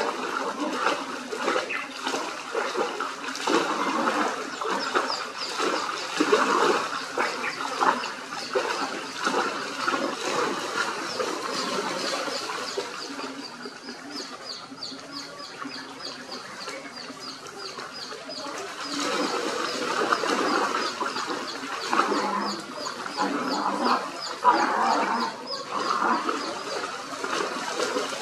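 Dogs splashing and wading through shallow muddy floodwater in uneven bursts, over a steady rush of water. A rapid series of short high chirps runs from about five seconds in until about eighteen seconds.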